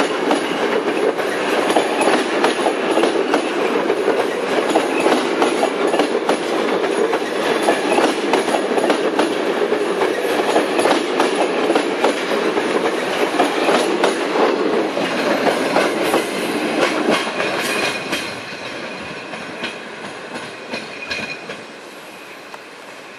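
A long rake of unpowered passenger coaches rolling past close by, the steel wheels clattering over rail joints in a dense run of knocks. The noise drops away about three-quarters of the way through as the train draws off.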